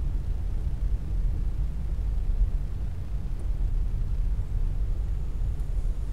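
Steady low rumble of a car being driven on city streets, heard from the car itself.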